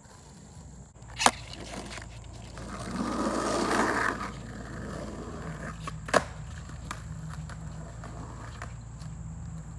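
Skateboard wheels rolling on asphalt for about a second and a half, between two sharp clacks of the board: a loud one about a second in and another about six seconds in.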